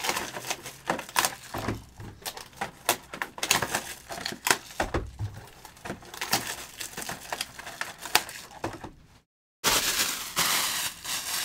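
Trading cards and card packs being handled by hand: wrapper crinkling with many irregular small clicks and taps. The sound cuts out completely for a moment about nine seconds in and returns with a steady hiss under the handling.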